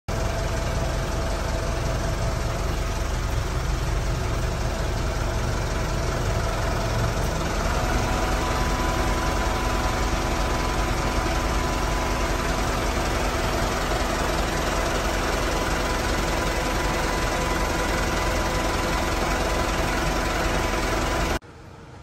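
Truck air conditioner blowing hard through the dash vents of a Mitsubishi Canter cab, cold enough to fog the air, over the idling engine: a steady rush of air with faint whining tones that shift about a third of the way in. It cuts off suddenly near the end.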